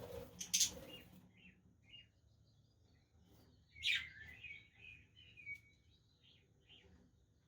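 Budgerigars chirping in short, scattered calls, with a burst of chattering warble about four seconds in. A brief noisy rustle comes in the first second and is the loudest sound.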